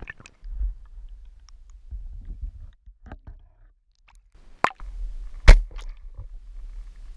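Underwater recording through a camera housing: a low rumble of moving water comes and goes, with scattered faint clicks and two sharp knocks a little under a second apart, a little after the middle.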